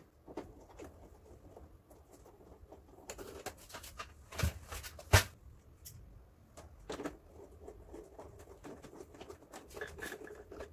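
Screwdriver driving screws back into the plastic casing of a Daikin wall-mounted air-conditioner indoor unit, with hands handling the casing: light, scattered clicks and taps, the loudest two about four and five seconds in.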